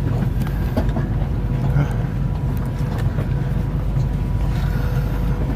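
Steady low rumble and hum inside a high-speed train carriage in motion, with faint voices in the background.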